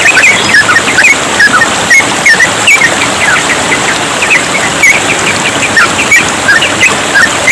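Yellow-vented bulbul (trucukan) singing a rapid, continuous run of short chirping notes, several a second, over the steady rush of trickling stream water.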